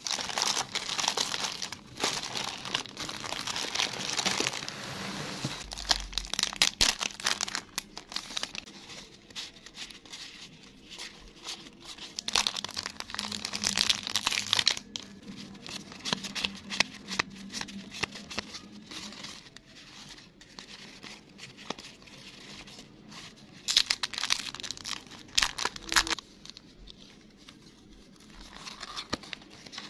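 Clear plastic packaging crinkling and rustling as hands handle and open packs of scrapbook stickers, in several bursts with quieter clicks and handling between; the loudest bursts are at the start, midway and about three quarters through.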